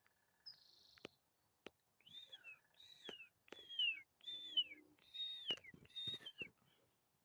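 A hawk calling six times in a row, each a descending scream about half a second long at an even pace. A short buzzy bird call comes just before, about half a second in.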